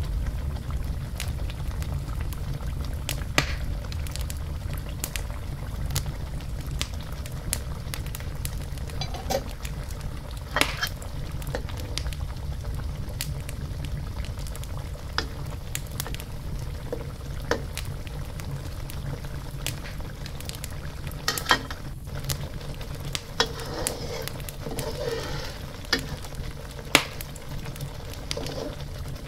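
Curry sauce with squid simmering in a wok: steady bubbling with scattered sharp pops throughout.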